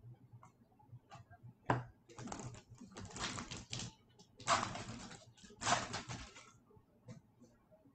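Foil wrapper of a hockey card pack being torn open and crinkled, in four crackling rustles over about four seconds, after a few light clicks of cards being handled.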